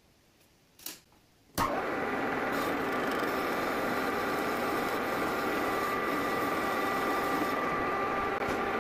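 Metal lathe switched on. After a short click about a second in, the motor and spindle start abruptly and then run steadily at speed with a steady high whine.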